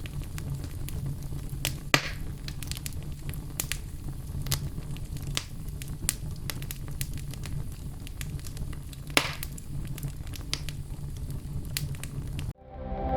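Wood fire burning with a low steady rumble and frequent sharp crackles and pops, two of them louder, about 2 and 9 seconds in; the fire sound cuts off suddenly near the end.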